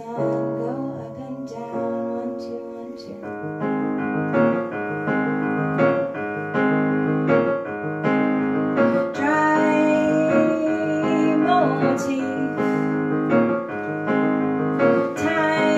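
Digital piano playing a slow, steady chord accompaniment, a new chord struck roughly every two-thirds of a second; from about nine seconds in the chords fill out with higher notes.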